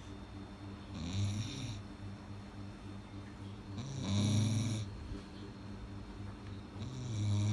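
A dog snoring in its sleep: three slow snores about three seconds apart, each a low-pitched snore with a breathy hiss on top, the last one starting near the end.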